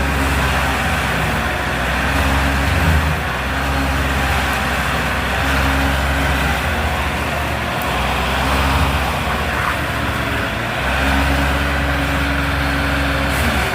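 A large engine running steadily, its low tone shifting in pitch and strength every few seconds as the load changes.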